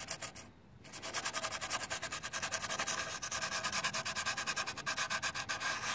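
Sandpaper rubbed by hand over a painted aluminium part of a GY6 scooter, in quick back-and-forth scratchy strokes that start about a second in, several a second. It is smoothing chipped paint and loose metal off before touch-up paint.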